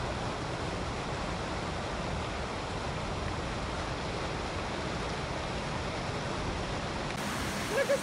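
Mountain river rushing over boulders in small whitewater rapids, a steady, even rush of water.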